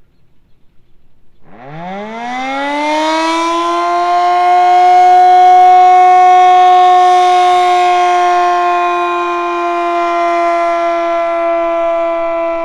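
Sentry Defender outdoor warning siren winding up about a second and a half in, its pitch rising and levelling into a loud, steady wail that sags slightly near the end. The uploader says it sounds like it is about to lose its legs, with its battery about had it.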